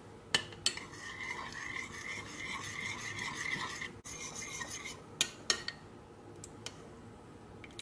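Metal teaspoon stirring dissolving gelatin in a ceramic ramekin set in a water bath, scraping round the bottom of the dish for about three seconds. There are a few sharp clinks of spoon on ceramic near the start and again about five seconds in.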